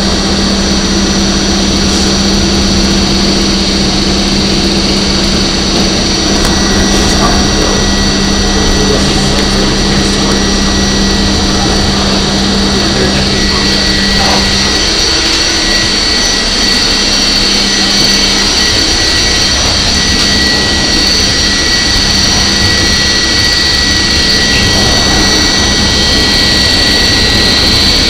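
Interior of a moving R44 subway car: steady, loud running noise of wheels on rail and the car's equipment, with a constant high whine over it. A low hum underneath drops away about halfway through.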